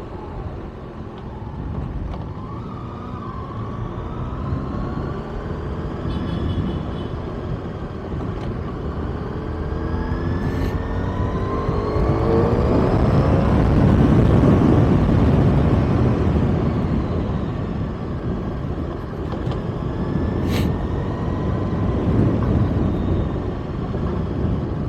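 Kawasaki ZX-6R inline-four sport bike under way, its engine rising in pitch twice as it accelerates, ridden in its low power mode. Wind rushes over the mounted mic underneath.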